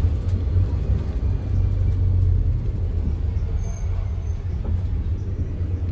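Steady low rumble of a double-decker bus's engine and running gear, heard from inside the cabin as the bus drives along.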